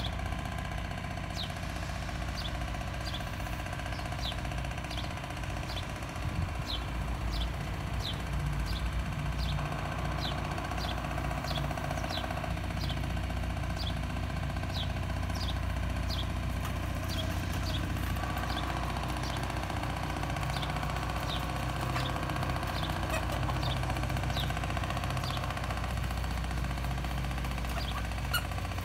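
A small bird repeating a short, high chirp about once a second over a steady low engine hum.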